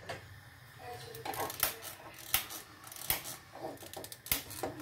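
Gas hob knob turned, then a long-nosed piezo gas lighter clicked about every three-quarters of a second to light the burner under a pot of water.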